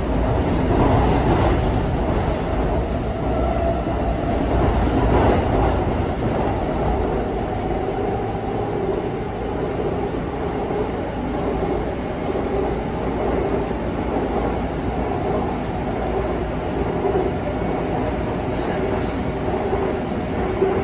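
Seoul Metro Line 2 subway train running on an elevated track, heard from inside the car: a steady rumble of wheels on rails, a little louder in the first few seconds.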